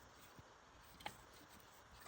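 Near silence: faint room tone with a single light click about a second in.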